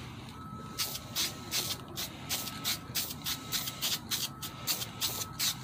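Aerosol spray-paint can hissing in short quick bursts, about three a second, starting about a second in, as paint is sprayed onto an engine valley pan.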